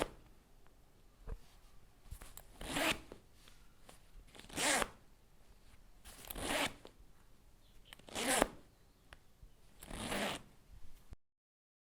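A zipper being zipped and unzipped, one quick stroke after another, about every two seconds.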